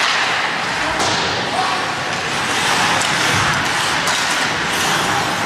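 Ice hockey game in play: skates scraping across the ice, with occasional knocks of sticks, puck or boards and spectators' voices mixed in.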